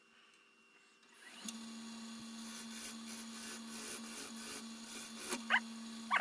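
Wood lathe running with a steady hum, with the rough noise of a tool working the spinning walnut over it; the hum starts about a second in, after a near-quiet start.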